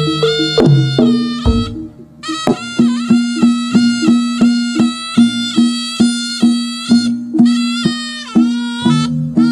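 Live jaranan music: a wind-instrument lead melody of held, sliding notes over a steady beat of drum strokes and a low sustained tone. The music drops out briefly after a low thump about one and a half seconds in, then resumes.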